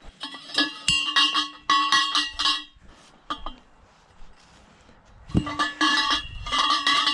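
Bent metal-tube greenhouse ridge connectors clanking and ringing against each other as they are carried and set down, in two spells of rapid clinks with a quieter gap in the middle.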